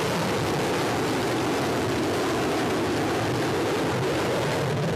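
A loud, steady rushing roar: even noise with no beat and no clear tone, holding at one level throughout.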